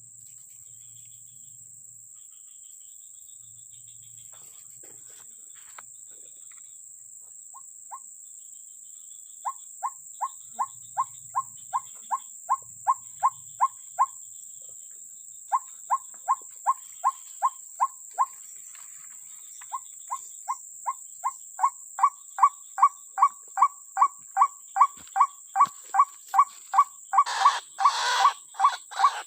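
A bird calling a short, even note about twice a second, in three long series that grow louder, over a steady high-pitched drone of insects. A brief rustle comes near the end.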